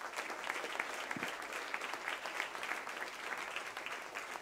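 Audience applauding: a dense, steady patter of many people clapping.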